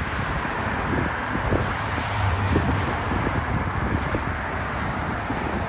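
Steady outdoor rushing noise with a low rumble that swells briefly about two seconds in.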